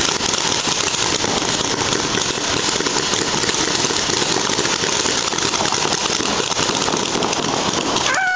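Dense, continuous crackle of many paintball markers firing rapidly at once. Just before the end a held pitched tone sets in, falling slightly.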